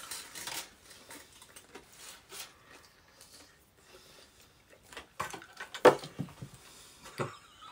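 Close-up eating sounds: crunching bites and chewing of fried chicken wings, with scattered small clicks and taps and a cluster of louder crunches and clicks about five to six seconds in.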